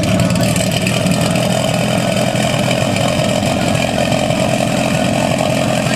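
Portable fire pump's small petrol engine running steadily, one even engine note.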